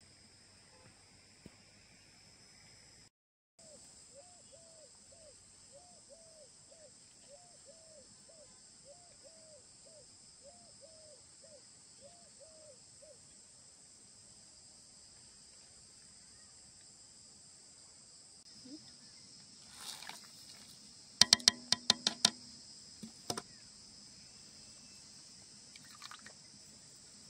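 Steady high-pitched chorus of crickets. From about 4 s to 13 s a short arched call repeats about twice a second, and a little after 20 s a quick run of sharp clinks and knocks stands out as the loudest sound.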